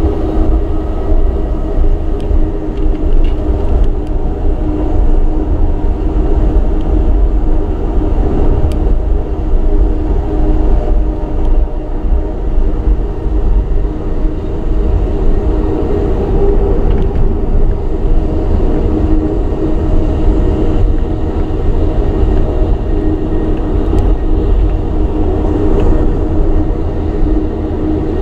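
Amtrak Southwest Chief passenger train running at speed, heard from inside the coach: a loud, steady rolling rumble of wheels on rail with a steady hum running through it.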